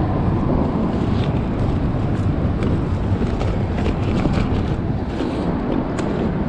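Wind buffeting the microphone as a steady low rumble, with faint crinkles and ticks from a woven plastic bag being handled.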